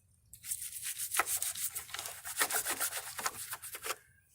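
A brush scrubbing corrosion off a car battery's negative cable terminal in quick, repeated strokes that start a moment in and ease off near the end.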